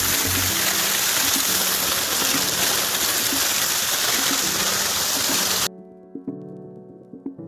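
Waterfall rushing, a loud steady wash of water with background music under it. The water sound cuts off suddenly near the end, leaving the music alone with plucked notes.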